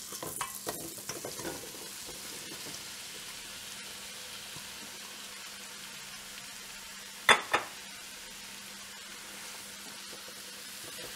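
Sliced mushrooms sizzling in melted butter in a pot, with a steady hiss and some clatter as they are tipped in at the start. Two sharp knocks about seven seconds in.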